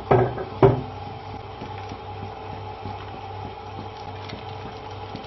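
Chopsticks knock twice against a clay pot of congee, about half a second apart near the start, each with a brief ring. A steady low hum runs underneath.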